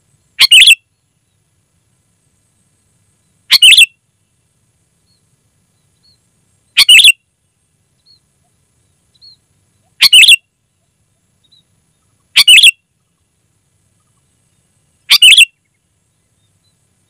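Sooty-headed bulbul calling: six short, loud phrases about every three seconds, with a few faint chirps between them.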